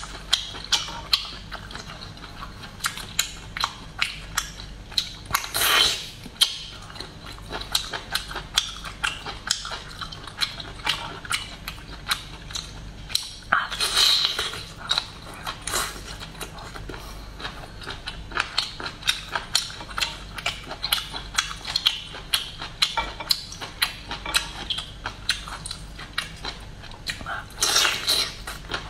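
Close-miked chewing of cooked octopus tentacle: a steady run of wet clicks and smacks, two or three a second, with a few longer, noisier bites or sucks spread through.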